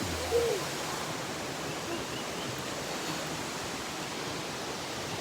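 Waterfall pouring into a pool, a steady rushing noise. A brief voice-like sound about half a second in.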